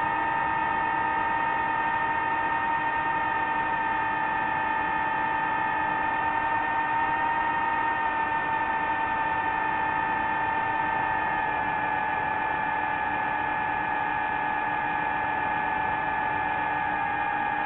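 DJI FPV drone's electric motors and propellers giving a steady high whine in cruising flight, with the pitch sagging slightly about two thirds of the way through.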